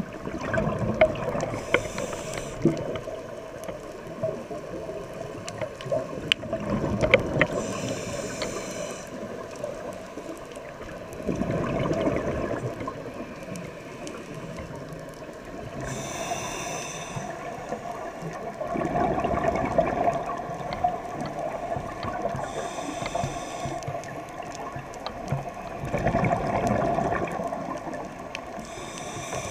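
Scuba regulator breathing underwater: a short hiss on each inhale, then a louder gurgling rush of exhaled bubbles, the cycle repeating about every six to seven seconds. Faint crackling clicks run throughout.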